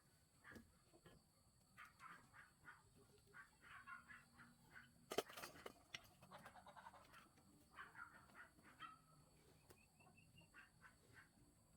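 Faint calls of domestic fowl, short and repeated, with a single sharp knock about five seconds in.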